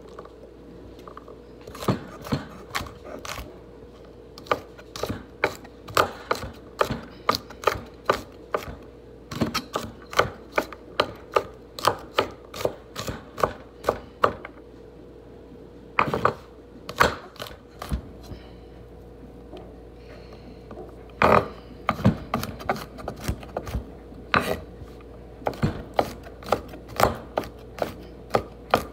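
Chef's knife chopping fresh garlic cloves on a wooden cutting board: runs of sharp knocks, about two or three a second, with a few short pauses between runs.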